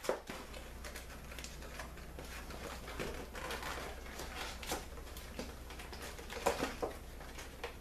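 A cardboard box being opened by hand: small scrapes, taps and rustles of the cardboard top flap being pried and pulled, with a couple of louder scrapes near the end.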